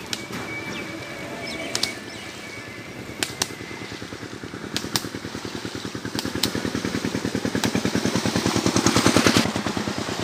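A small engine running with a fast, even beat that grows louder and then drops off sharply near the end, with a few sharp clicks over it.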